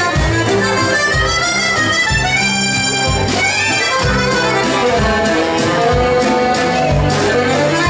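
Chromatic button accordion playing a melody over a live band with a steady drum beat.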